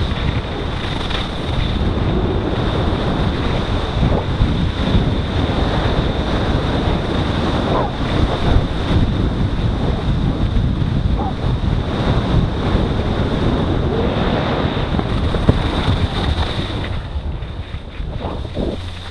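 Wind buffeting an action camera's microphone during a fast ski run, with the rush of skis over the snow underneath. The noise eases off near the end.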